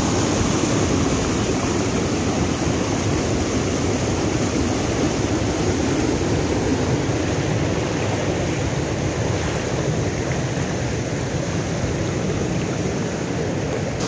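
River water rushing over rocks in a small waterfall cascade, a loud, steady rush of whitewater.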